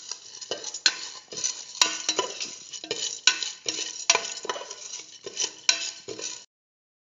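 A spoon stirring mung beans and ground spices in a metal pressure cooker, scraping and rattling against the pot's bottom in quick strokes about twice a second. It cuts off suddenly near the end.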